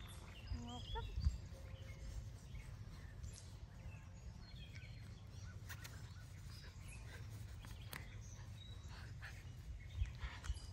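Outdoor ambience: scattered short bird chirps over a low steady rumble, with a couple of soft thumps about a second in and again near the end.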